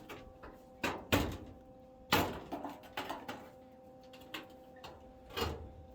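Irregular sharp metallic clunks and knocks, about seven of them with short ringing tails, from working on the car's steel body and handling tools, over a steady low hum.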